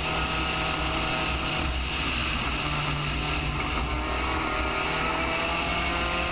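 Spec Racer Ford GEN3's four-cylinder engine running steadily under load at speed, heard from the cockpit with wind rush, its pitch climbing slightly near the end.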